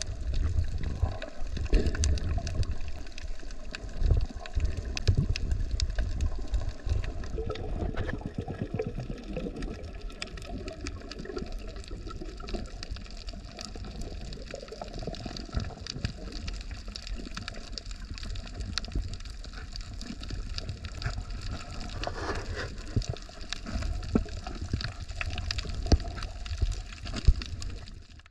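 Underwater sound from a snorkeler's camera: a low rumble of moving water, louder in the first few seconds, with a scattered crackle of sharp clicks.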